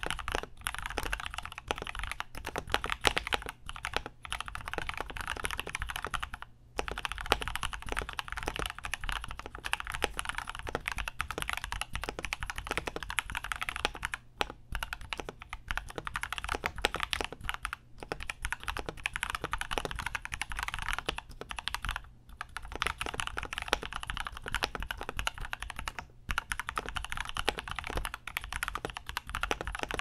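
Fast continuous typing on a KBD67 Lite mechanical keyboard with linear Gateron Milky Yellow switches, lubed with 205g0 and filmed, which the owner finds lowers the pitch and mutes the switch a little. The keys clack in a dense run, pausing briefly a few times.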